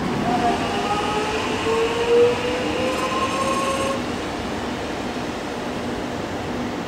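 Alstom X'trapolis electric multiple unit train pulling away, its traction drive giving a whine of several pitches that rises steadily as it gathers speed. The whine stops abruptly about four seconds in, leaving a steadier rumble of a train at a station platform.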